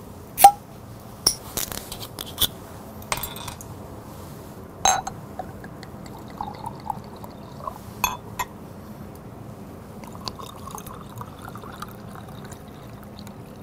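A soju bottle's screw cap cracked open with a sharp click, then bottles and glasses clinking and knocking, and soju glugging into a small glass. Near the end, beer poured into a glass, its pitch slowly rising as the glass fills, for a soju-and-beer mix.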